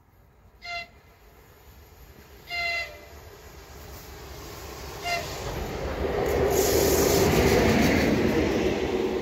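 Electric locomotive sounding its horn three times as it approaches: a short blast, a longer one, then another short one. Its rail and running noise then swells into a loud pass-by.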